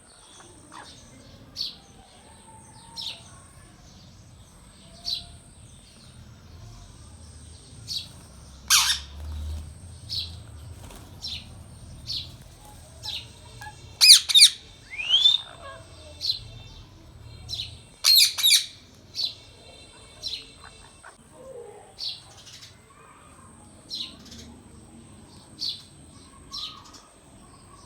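Indian ringneck parakeet giving short high chirps every second or two, with louder sharp calls about nine seconds in and quick runs of two or three around the middle.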